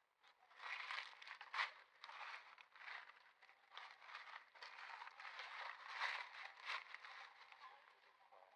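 Irregular rustling and crackling: a run of short scratchy noises with a few sharp clicks, starting about half a second in.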